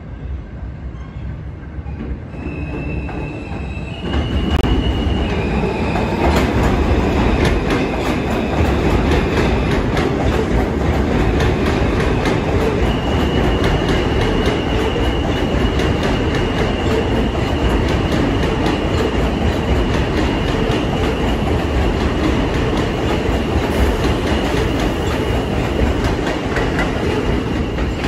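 R160 subway train approaching along the elevated track and running past close by. It grows louder over the first few seconds, then holds a steady rumble with clickety-clack from the wheels over the rail joints and a high, steady wheel squeal.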